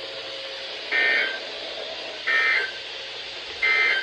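Emergency Alert System SAME end-of-message code from a weather radio: three short bursts of two-tone digital data screech, about 1.4 s apart, signalling the end of the Severe Thunderstorm Warning broadcast.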